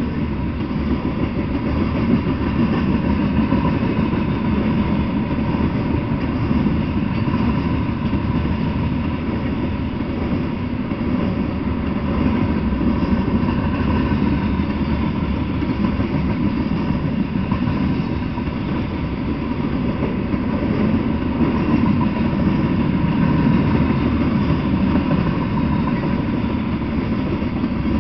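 Freight train of covered hopper cars rolling past, a steady, even noise of steel wheels on rail with no breaks or clanks.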